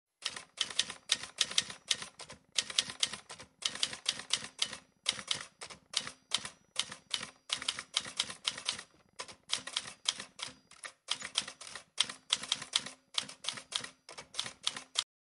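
Typewriter typing: rapid runs of sharp key clicks in bunches with short pauses between them, over a faint steady hum. It stops abruptly near the end.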